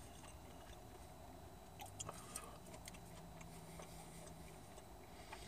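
Near silence: room tone, with a few faint small clicks about two seconds in.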